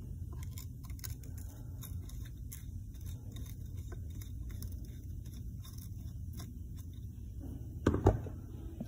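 Screwdriver turning out the flathead screw on a Stihl chainsaw's muffler cover: faint, irregular small clicks and ticks of the metal tool in the screw slot. A couple of louder knocks come near the end as the tool comes away.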